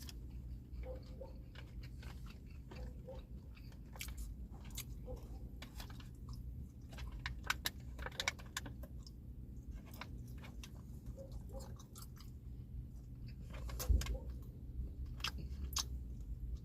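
Person chewing close to the microphone, eating a snack of turkey, Colby Jack cheese and almonds, with scattered crisp crunches. There is a low thump about fourteen seconds in.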